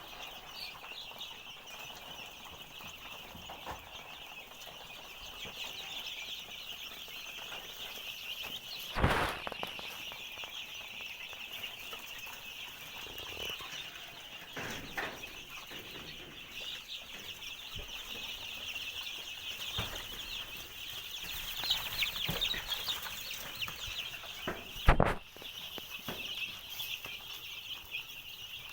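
A flock of young chicks peeping constantly in a dense, high chorus. Two loud, short thumps stand out, about nine seconds in and again near the end.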